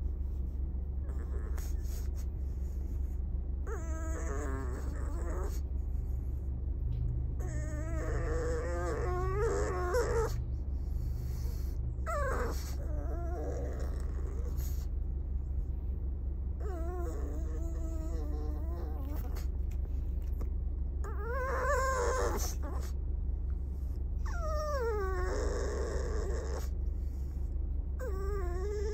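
Pug and toy poodle mix dog whining and yowling in protest at being taken to the vet: about six drawn-out cries of a second or two each, their pitch wavering up and down. A steady low hum runs underneath.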